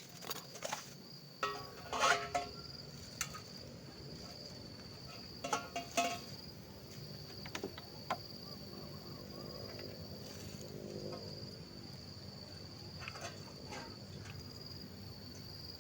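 Forest insects droning on one steady high note, with scattered knocks and clatters, loudest about two and six seconds in.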